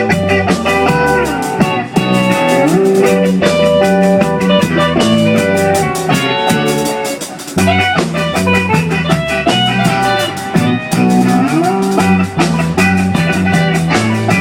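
Live band playing an instrumental passage between sung verses: electric guitar over a steady drum-kit beat and a low bass line.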